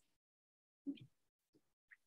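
Near silence, broken by one brief faint sound about a second in.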